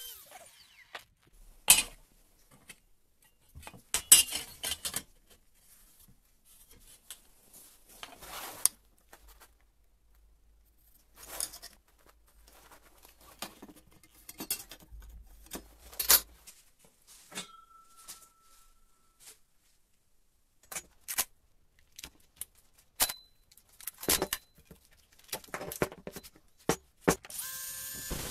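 Scattered metal clinks and knocks with quiet gaps between them, as steel hand tools and a steel bar are picked up, laid against each other and set down.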